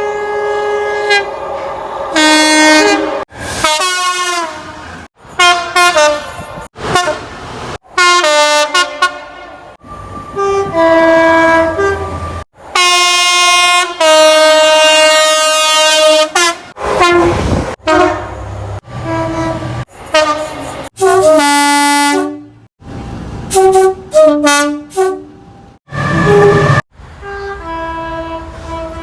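British train horns sounding in a fast string of short clips cut hard one after another, about twenty in all. Most are two-tone horns sounding a high and a low note, some held, some dropping in pitch.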